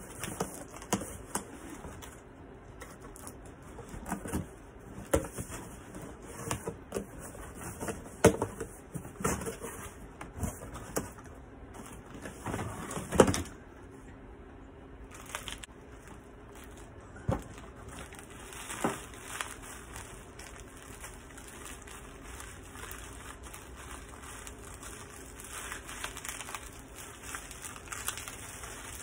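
Cardboard box being cut open with a utility knife and unpacked: scattered scrapes, taps and rustles of cardboard, with one sharp knock about halfway through as a boxed unit is lifted out. Near the end, quieter handling of plastic wrapping.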